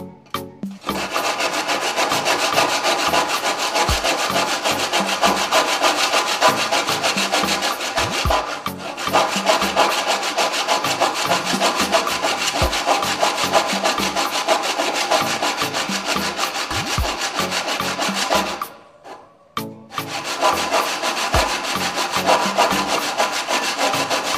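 Handsaw crosscutting a pine board with quick, steady back-and-forth strokes. The sawing stops for about a second near the end, then starts again.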